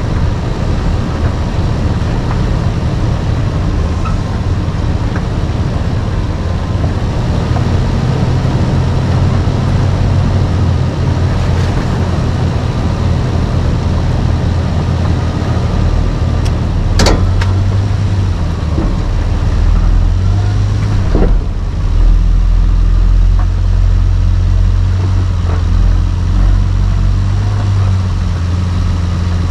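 Toyota Land Cruiser 80 series (FZJ80) 4.5-litre straight-six engine running steadily at low speed while driving off-road, a little louder in the second half. Two sharp knocks a few seconds apart past the middle.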